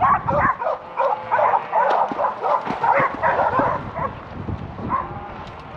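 Herding dog barking in a quick string of repeated barks, thinning out after about four seconds.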